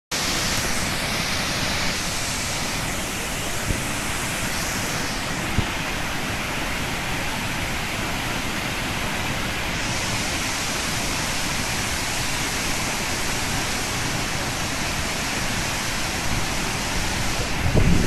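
Ouzoud Falls, a tall waterfall of several streams, pouring with a steady, even rush of falling water, with a few low thumps near the end.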